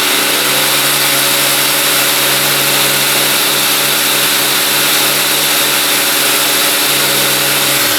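Small electric vacuum pumps running steadily, pulling suction for vacuum dog clamps that hold a small workpiece. A steady motor hum sits over a constant rushing hiss, and the lower hum drops out shortly before the end.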